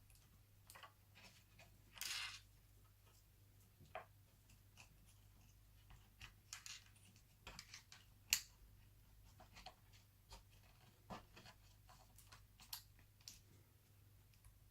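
Faint scattered clicks and taps of small laptop parts being handled and fitted during reassembly, with a brief scrape about two seconds in and a sharper click a little after eight seconds.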